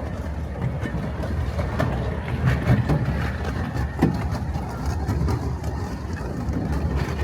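Miniature railway train running along the track: a steady low rumble with scattered clicks from the wheels and rails.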